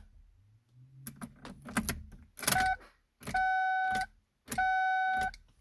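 Ignition key clicking and keys rattling in a 2015 GMC Canyon, then the dashboard warning chime sounding three times at a steady pitch, about a second apart. There is no cranking from the starter: the truck won't start.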